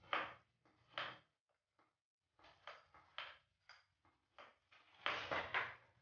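Faint knocks and rattles of a mountain bike suspension fork and headset parts being handled while the fork is fitted into the frame's head tube, in short separate clunks with a busier cluster about five seconds in.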